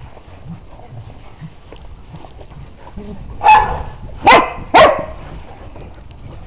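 A dog barking three times about halfway through: short, loud barks, the last two about half a second apart.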